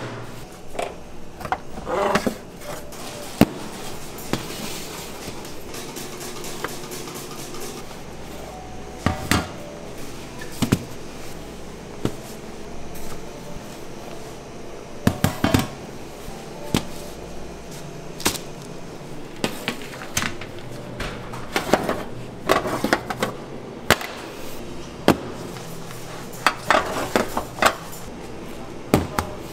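Scattered knocks and clatters of bakery work, irregular and sharp, some in quick clusters, over a steady low background hum.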